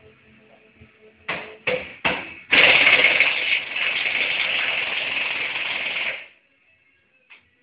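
Pneumatic impact wrench working the rear wheel nuts of a Ferguson 20 tractor: three short blips, then one long run of almost four seconds that cuts off suddenly.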